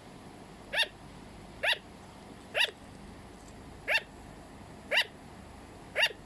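Sugar glider barking: six short, evenly spaced barks, about one a second, each a quick rising-and-falling note.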